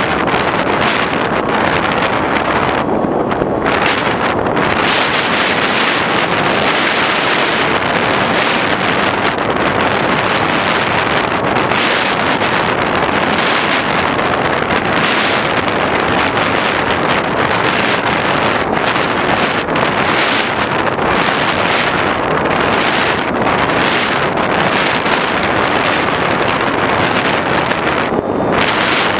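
Loud, steady rush of airflow over the microphone of an onboard GoPro on an X8 FPV plane in flight.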